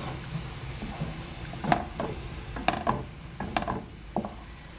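Two wooden spatulas stirring ground meat, grated carrot and freshly added grated zucchini in a frying pan, knocking sharply against the pan several times, over a low sizzle of the food frying.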